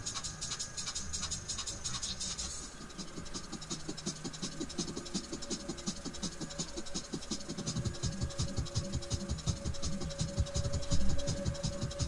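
Background music with a quick, even rattling beat, like a shaker, and a held note in the second half.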